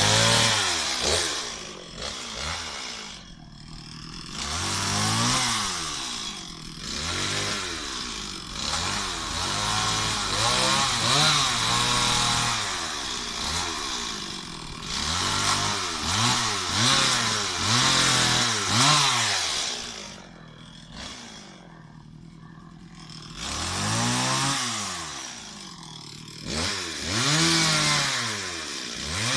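Stihl MS 260 two-stroke chainsaw being revved over and over, its pitch rising and falling back with each blip of the throttle, with two short spells of dropping back toward idle.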